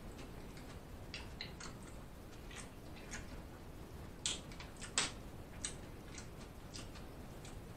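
Close-miked eating: faint wet chewing and mouth clicks, with two louder clicks about four and five seconds in.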